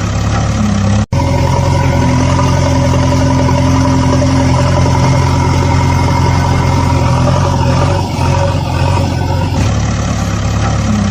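Vehicle engine running steadily at a constant pitch, with a sudden break for an instant about a second in.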